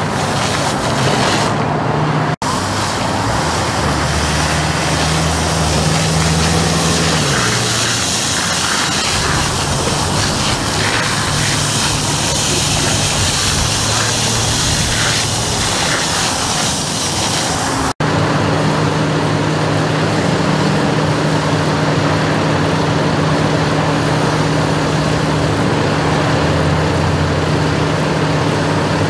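Steady freeway traffic noise with the steady low drone of a fire engine's engine running. The sound drops out for an instant twice.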